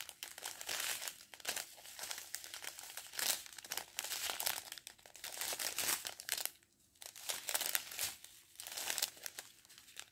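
Small clear plastic bags of diamond-painting drills crinkling as they are handled one after another, in irregular bursts with a short lull about two-thirds of the way through.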